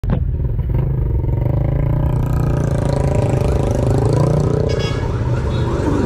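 Motorcycle engine running steadily with street traffic, a strong low hum throughout, and a brief high-pitched tone a little before the end.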